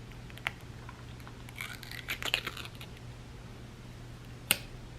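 Skincare products being handled: a few light clicks, a short crinkly rustle about two seconds in, and a sharp click near the end, like a cap or container snapping.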